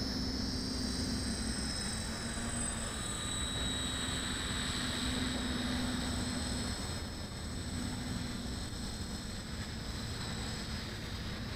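Low, steady rumble of wind on a small onboard camera's microphone, with a faint steady high whine and a low hum that comes and goes: a sound like a distant engine, fading for a stretch about seven seconds in.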